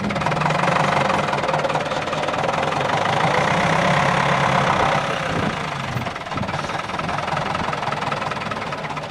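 Case 1494 tractor's four-cylinder diesel engine running as the tractor drives slowly with its front loader; the engine note drops and gets quieter about five and a half seconds in.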